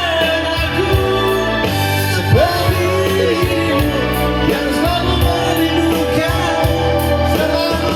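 A man singing a melody over band accompaniment with a steady beat.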